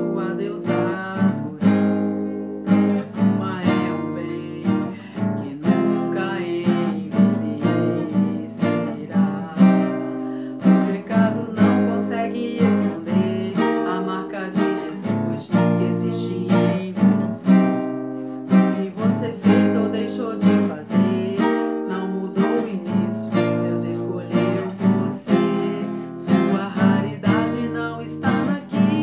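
Nylon-string classical guitar played with the fingers: chords strummed and plucked in a steady, quick rhythm.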